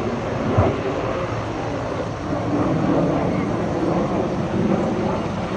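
Twin turbofan engines of an Aermacchi M-346 jet trainer in flight overhead: a steady, rushing jet noise heard from the ground. A short thump comes about half a second in.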